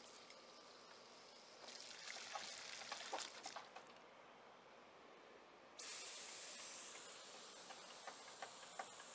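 Garden hose spraying water in a steady hiss, with splashing as a German Shepherd puppy bites at the stream, busiest about two to four seconds in. The hiss drops away for a couple of seconds and comes back suddenly about six seconds in.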